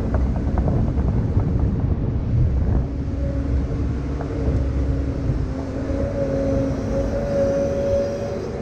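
Diesel engine of heavy earthmoving equipment running under load: a low, steady rumble with a few rattling clanks in the first couple of seconds, then a clearer engine drone that rises a little in pitch.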